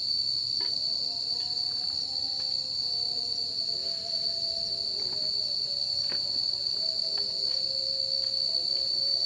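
Crickets trilling at night in one steady, unbroken high-pitched drone.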